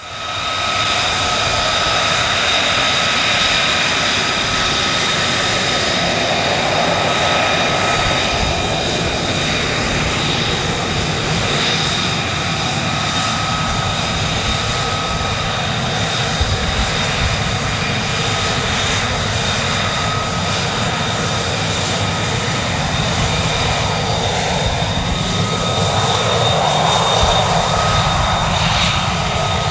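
RAF F-35B Lightning II's Pratt & Whitney F135 turbofan at taxi power: a loud, steady jet rush and whine with constant high-pitched tones. It fades in at the start and swells slightly near the end as the jet rolls past.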